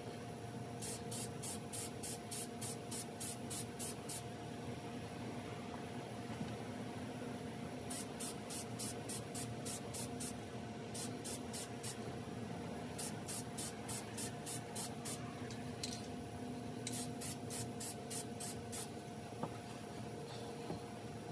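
Aerosol spray can of matte clear enamel sprayed in quick short bursts, about three or four a second, in five runs, laying a second sealing coat onto a cork duck decoy. A steady hum runs underneath.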